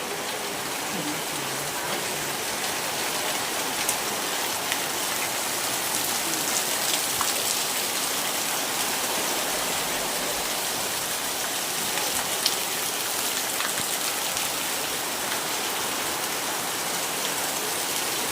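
Steady rain falling on surfaces, an even hiss with a few sharp ticks of single drops.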